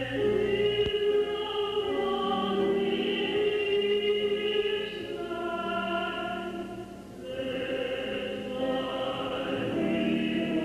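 A choir singing a slow spiritual in long held notes, fading briefly about seven seconds in before the voices come back.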